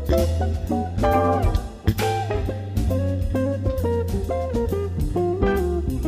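Background music: a band track with plucked guitar lines over bass and drum kit, in a blues-jazz style, with a steady beat.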